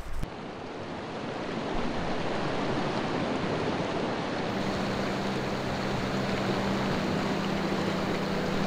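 River water rushing steadily, growing louder over the first two seconds. A low steady tone joins about halfway through.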